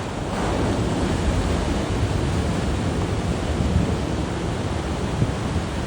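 Sea waves breaking and washing onto the shore, a steady rushing surf with a fresh wave breaking about half a second in.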